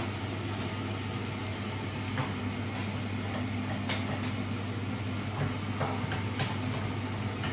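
Steady low hum and hiss of a kitchen range hood fan, with a few faint clicks of a spatula against the frying pan.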